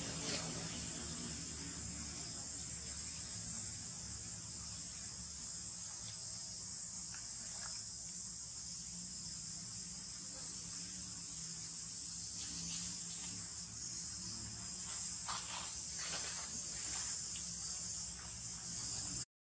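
Steady, high-pitched insect chorus, with a faint low hum beneath it; the sound drops out for a moment right at the end.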